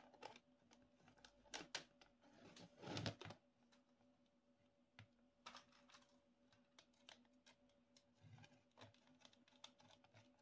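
Faint, scattered clicks and taps of acrylic ant-farm panels and small screws being handled and fitted by hand, over a low steady hum.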